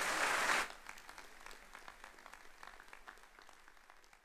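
Audience applauding, loudest in the first half second, then thinning to scattered claps that fade away.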